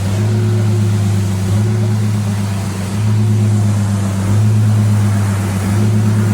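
An engine running steadily at a constant speed, with its pitch shifting slightly every second or two.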